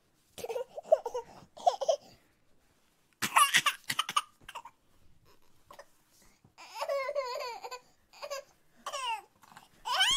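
Short bursts of non-word vocal sounds, laughing and crying out, with a warbling cry about two thirds of the way through and quick rising squeals near the end.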